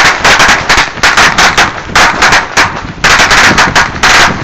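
A large mass of firecrackers going off in a continuous rapid crackle of sharp bangs, so dense that they run together like machine-gun fire, surging louder and softer every second or so.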